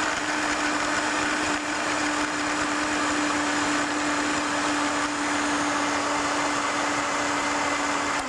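Electric blender motor running steadily at one constant pitch, blending a mango lassi of mango pulp, soy yogurt, ice and water.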